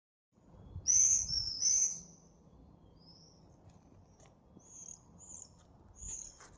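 Small birds chirping: two loud high chirps about a second in, then fainter scattered high calls over a low outdoor hush.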